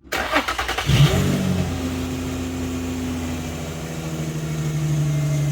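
2008 Infiniti FX35's 3.5-litre V6 cranked by the starter for about a second, catching with a brief rev flare, then settling into a steady idle through a newly fitted exhaust Y pipe. A faint steady whine over the idle is belt noise from a bent belt tensioner.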